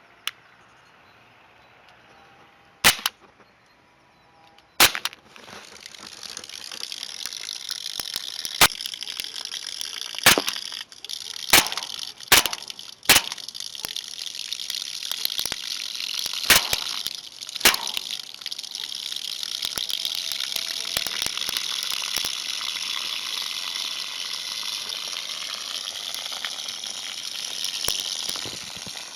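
STI Duty One CO2 blowback airsoft pistol firing about ten sharp, irregularly spaced shots. A steady hissing rush starts just after the second shot and runs on beneath the rest.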